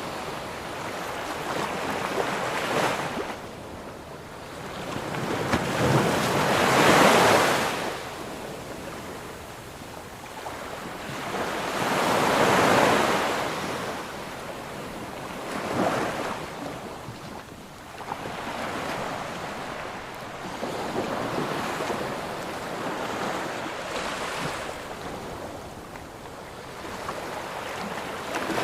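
Ocean surf on a shore: waves break and wash in one after another, each a rushing swell a few seconds long that then ebbs. The loudest wave comes about seven seconds in.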